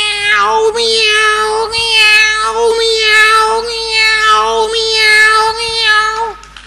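A man's voice mimicking a cat: a long, drawn-out meow held on one steady pitch for about six seconds, its vowel shifting a few times, then cutting off.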